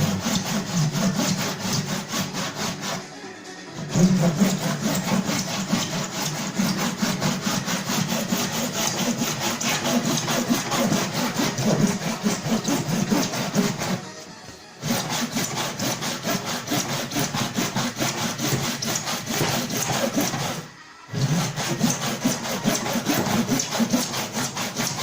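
A saw cutting steadily through a car's body, with brief pauses about 3, 14 and 21 seconds in.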